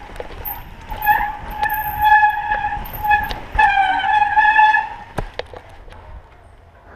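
Mountain bike disc brakes squealing in repeated stretches as the rider brakes down a rough dirt trail, with sharp clicks and knocks from the bike over bumps. The squealing stops about five seconds in and the sound drops to a quieter rattle.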